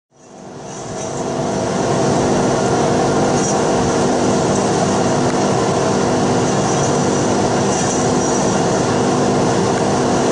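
Steady mechanical machine noise: a continuous hum with several steady tones over a hiss, fading in over the first two seconds and then holding level.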